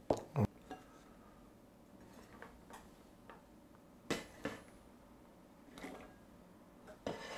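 Chinese cleaver chopping green beans on a wooden cutting board: two sharp chops right at the start, then scattered light taps and a few louder knocks as the cut beans are gathered and moved with the blade.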